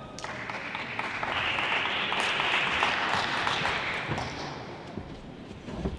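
Audience applauding in a hall, swelling over the first two seconds and dying away about four and a half seconds in. A couple of sharp knocks follow near the end.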